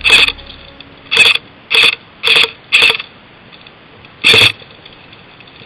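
Airsoft gun firing six short bursts, one after another over about four and a half seconds, with a mechanical gearbox clatter in each.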